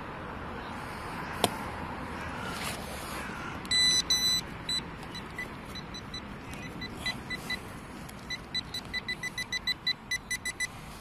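Handheld metal-detector pinpointer beeping as it is probed in a freshly dug hole: two longer high tones about four seconds in, then short beeps that come faster and faster toward the end, the sign of the probe closing in on a metal target. A single sharp knock about a second and a half in.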